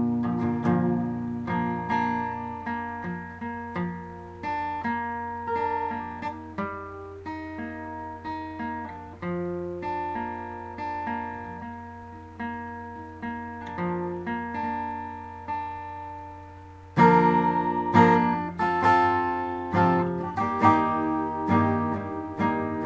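Acoustic guitar playing an intro: picked notes ringing and fading one after another, then played louder with fuller strums about 17 seconds in.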